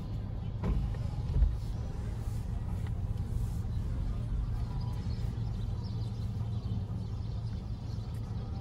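Car's steady low rumble of engine and tyres, heard from inside the cabin as it creeps forward. There is a short click under a second in and a low thump about a second and a half in.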